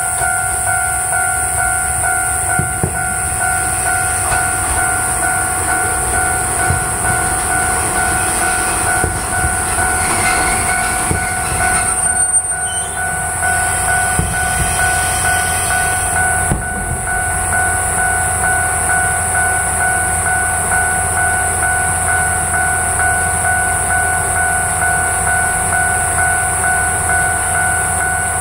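Kanto Railway KiHa 0 diesel railcar rolling in with the clatter of its wheels over rail joints. It brakes to a stop about halfway through, and its diesel engine then idles with a steady low hum.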